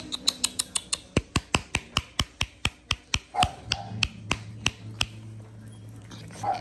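A person clicking to call French bulldog puppies: a quick run of sharp clicks, about seven a second at first, then slowing to three or four a second and stopping about five seconds in.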